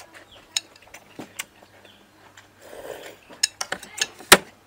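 Metal spoon clinking and scraping against a bowl while scooping up balut: a few scattered clinks, then a quicker run of them in the last second and a half, the loudest just before the end.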